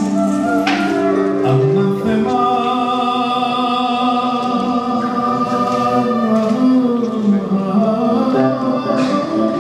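Slow Epirus-style Greek music, several parts held together in long notes that slowly bend in pitch.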